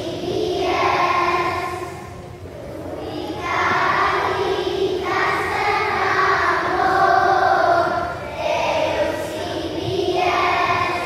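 Choir of young children singing together in phrases, with brief pauses between phrases.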